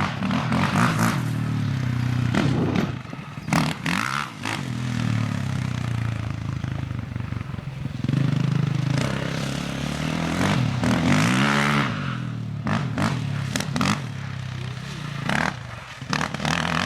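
Small pit-bike engine running and revving up and down, with repeated clattering knocks.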